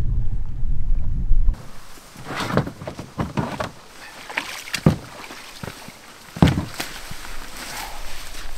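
Wind rumbling on the microphone, cut off suddenly about a second and a half in. Then knocks and thumps, with rustling in between, as a paddler climbs out of a beached canoe with a paddle.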